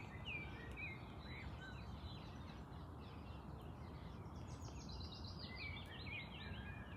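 Songbirds singing: quick chirps and trills, with a fast run of repeated notes stepping down in pitch in the second half, over a steady low rumble.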